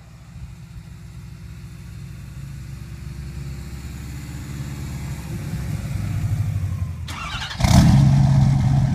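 Subaru Impreza WRX's flat-four engine running as the car drives closer, its low rumble growing steadily louder. About seven and a half seconds in, a sudden much louder engine sound takes over for the last second or so.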